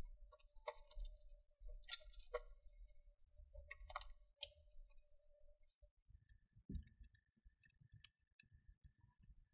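Faint, scattered clicks and ticks of hands and tweezers handling thin laptop wiring and plastic parts as cables are tucked into place. A faint steady tone sits underneath and shifts higher about six seconds in.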